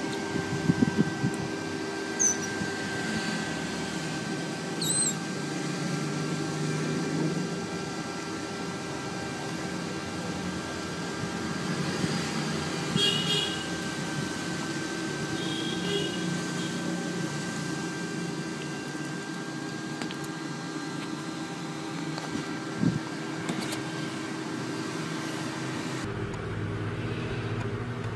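Steady room hum with a few brief high squeaks early on and short chirps around the middle, from a young otter chewing food on a tiled floor.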